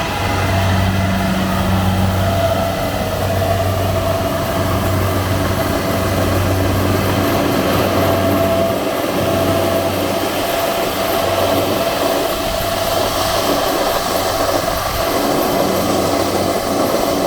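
Combine harvester running steadily: a low engine drone under the dense rushing clatter of its cutting and threshing machinery, with a thin held whine.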